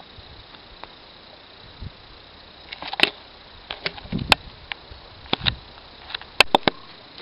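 A steady hiss, then from about three seconds in about a dozen sharp, irregular clicks and knocks, a few of them with a dull low thump.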